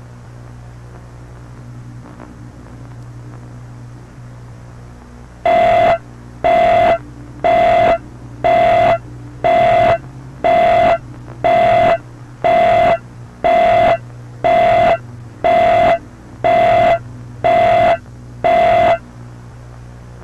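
Emergency-alert style electronic beeps: a single buzzy tone pulsed about once a second, fourteen times, starting about five seconds in. Under it, a steady low hum and hiss.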